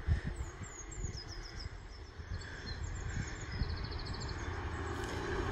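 Small birds chirping and twittering, over a low rumble that grows steadily louder as a passenger train approaches along the line.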